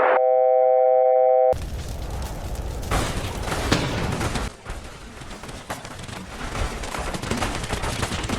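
A steady electronic warning tone sounds for about a second, then cuts abruptly to an airliner crash sound effect: a heavy impact and explosion with a deep rumble and crackling bangs, loudest about three seconds in.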